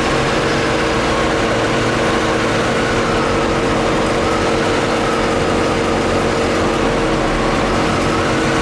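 Chevrolet C4 Corvette's V8 idling steadily with a misfire on the number 1 cylinder, which the owner puts down to a compression problem.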